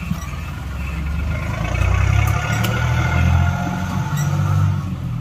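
A low engine-like drone that swells about two seconds in and eases off near the end.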